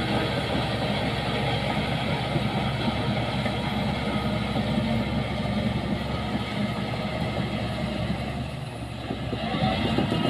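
Heavy diesel engine of earth-moving machinery running steadily; it eases off slightly near the end, then picks up again.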